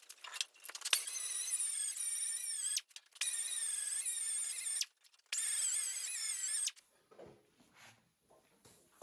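Angle grinder grinding a piece of steel plate in three passes of a couple of seconds each, its high whine wavering in pitch as the disc bites.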